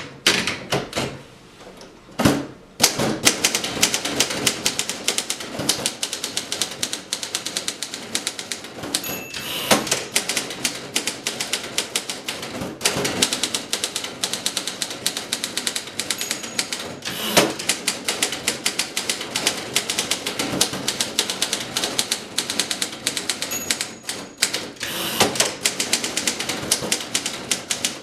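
1939 Imperial 50 standard typewriter being typed on rapidly, the type bars striking in quick runs of clicks from about three seconds in. Three times, a short ring of the end-of-line bell is followed about a second later by the carriage return.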